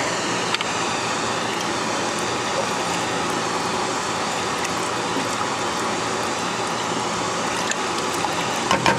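A steady rushing noise from the stovetop cooking, with faint scrapes and ticks of a wooden spoon stirring a pot of thin peanut sauce.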